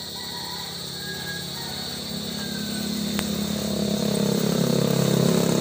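A vehicle engine running and growing steadily louder as it approaches.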